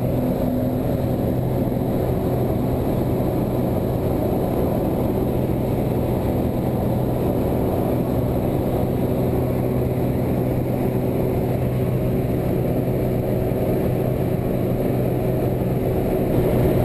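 Piston engine and propeller of a small high-wing jump plane running at climb power after takeoff, heard from inside the cabin as a loud, steady drone, a little louder near the end.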